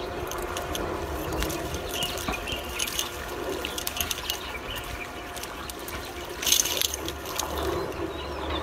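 Green nylon fishing net paying out fast through a hand into the water, the mesh rustling and clicking in quick irregular ticks, over a faint steady hum.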